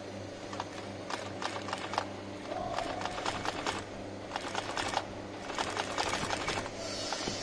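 Industrial single-needle sewing machine stitching leather upholstery in four short runs of rapid needle strokes, stopping briefly between runs.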